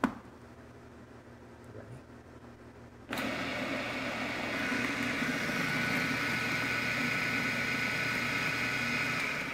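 Food processor motor switches on about three seconds in and runs steadily, with a whine, chopping boiled parsnips into a rough mash with no liquid added yet; it winds down near the end. A sharp click comes right at the start.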